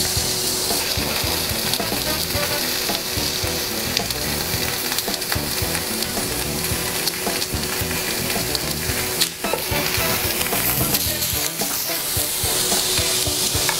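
Portobello mushroom caps and rounds of panela cheese sizzling steadily in oil on a stovetop griddle pan as they cook.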